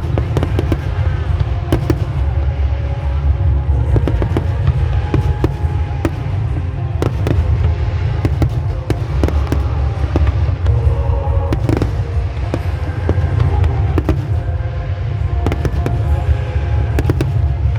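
A fireworks display going off: many sharp bangs and crackles in quick succession over a continuous low rumble, with music playing underneath.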